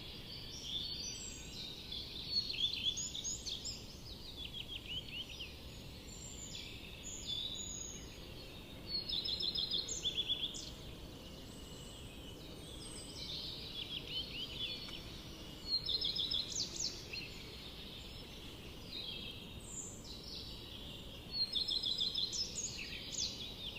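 A chorus of birds calling and chirping. It includes quick trills of short falling notes, repeated in clusters every few seconds, over a faint steady low background noise.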